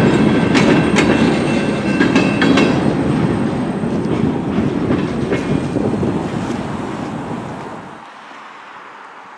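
Freight cars rolling past on steel wheels, clacking over rail joints with a few brief high squeals, the rumble fading as the last car goes by. About eight seconds in it cuts to a much fainter, distant train sound.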